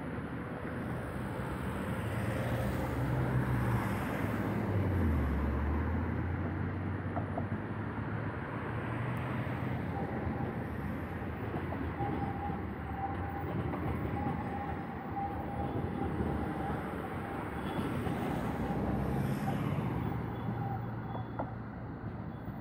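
City traffic running steadily, with vehicles passing that swell the rumble a few seconds in and again near the end. A thin, faint whine sounds from about ten seconds to near the end.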